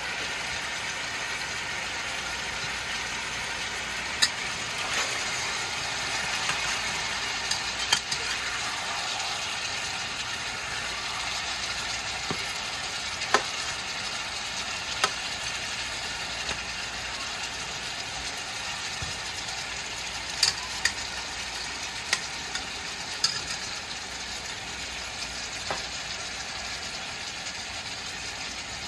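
Turkey neck pieces sizzling with a steady hiss as they sear in a pan on high heat, while a metal spatula stirs and turns them, clacking sharply against the pan about ten times.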